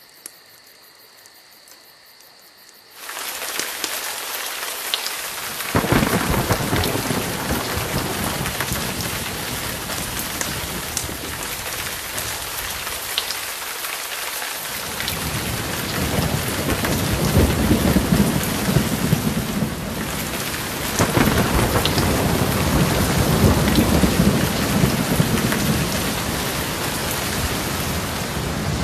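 Heavy rain with rolling thunder. The rain sets in suddenly about three seconds in after a faint hiss, with a rumble of thunder a few seconds later and long rolling rumbles through the second half.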